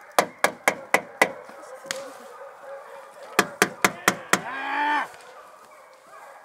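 A metal mess tin banged to make noise, sharp strikes in two quick runs of five at about four a second. About two thirds through, a drawn-out call bends up and down in pitch.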